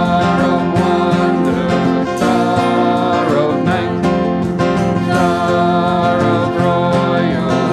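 Small worship band playing an instrumental passage of a carol: strummed acoustic guitar and keyboard, with a harmonica carrying the melody.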